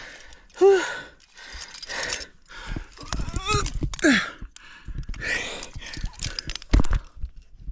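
A climber breathing hard, with sighs and short voiced groans of effort between breaths. There are a few short knocks in between.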